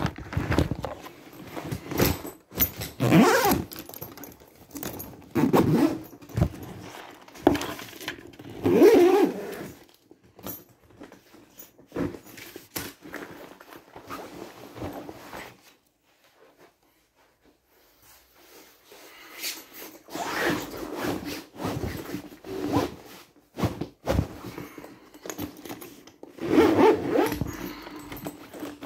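A wheeled laptop trolley bag being packed by hand: irregular rustling and scraping of fabric and gear with zipper noises, and a quiet spell of about two seconds past the middle.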